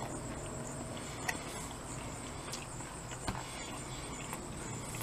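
Quiet outdoor ambience: a steady low rumble and a steady high whine, with two small sharp clicks about one and three seconds in, from a fork on a plastic takeout container during eating.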